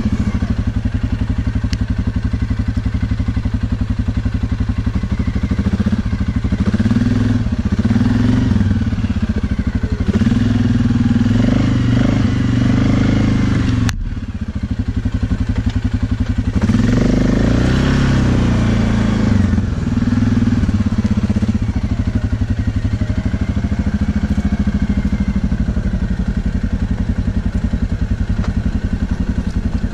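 Quad (ATV) engine running while riding a forest trail, its note rising and falling as the throttle is opened and eased off. A sharp click and a short drop in level come about halfway through.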